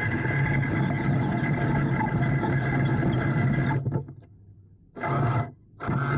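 Radio-controlled construction machine running with a steady mechanical hum and whine. The hum cuts out abruptly about two-thirds of the way through, returns briefly, stops again, and resumes just before the end.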